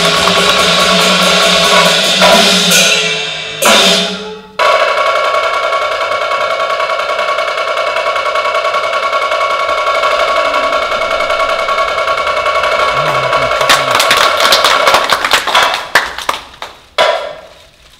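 Chinese opera percussion ensemble of drums and gongs playing a long roll with steady ringing tones held over it. Near the end it breaks into separate sharp strokes that thin out and stop.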